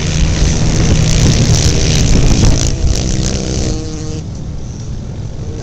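Racing quad ATV engines running hard around an ice oval, loudest as the pack passes close, then falling off about four seconds in as they pull away.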